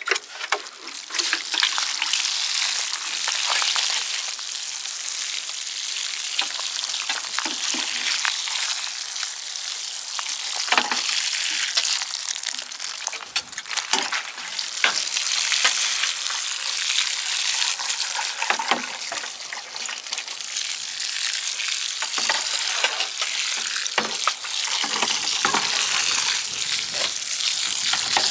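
Water spraying onto the soil of a garden bed, a steady hiss as the bed is watered ahead of planting peas.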